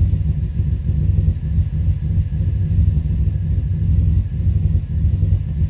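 2005 Subaru Forester XT's turbocharged 2.5-litre flat-four idling, a steady low rumble. This is the rough idle the owner is trying to sort out, on an engine he says is running rich.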